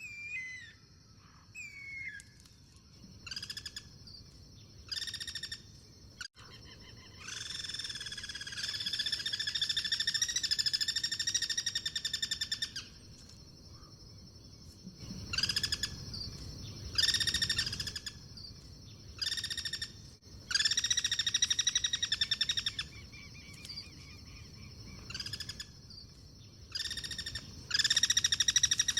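Guira cuckoos calling back and forth in rapid, rattling trills. The calls come in bouts of a second up to about five seconds, the longest a few seconds in and again around the middle, over a steady high hiss.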